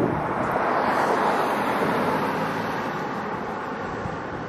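Boeing 737-800's CFM56 turbofan engines running as the jet taxis and turns on the runway after landing: a broad, even rushing sound that swells about a second in and then slowly fades.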